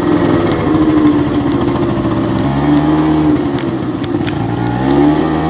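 A motor vehicle's engine running steadily, its pitch dropping and rising again a few times.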